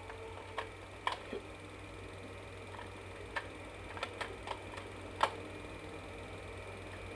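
A steady low hum with a scatter of faint, irregular clicks, the sharpest about five seconds in.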